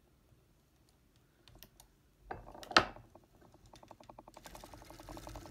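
Foster Victoria vintage circular sock machine: a few light metallic clicks of the latch needles being moved by hand, a sharp clack near the middle, then a fast, even run of clicks, about ten a second, as the machine is cranked round.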